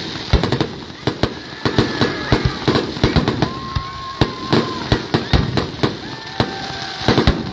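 Fireworks show: many sharp bangs and crackles from bursting shells, irregularly spaced, with a few short, high, steady whistling tones among them.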